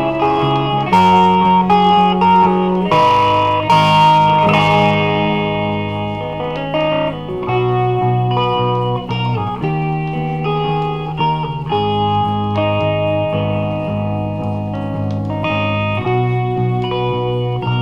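Instrumental bedroom-pop music: a melody of pitched notes over held bass notes that change every second or two, with a few hissy hits in the first five seconds.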